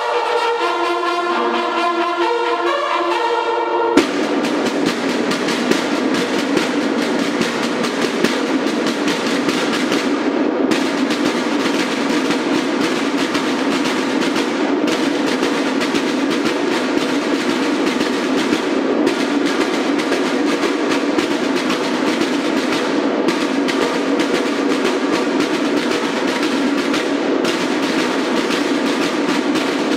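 A banda de guerra's bugles sound a call, cut off about four seconds in by its snare drums, which then play a fast, steady cadence of rolls and beats in phrases, with a short break about every four seconds.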